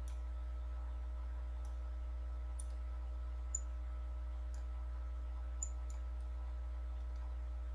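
Computer mouse buttons clicking while working in CAD software: about eight short, scattered clicks at irregular intervals, over a steady low hum.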